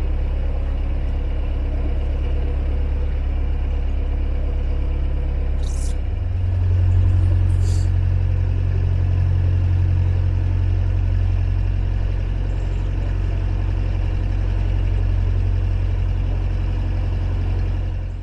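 Narrowboat's diesel engine running steadily under way, its revs stepping up about six seconds in and holding at the higher speed.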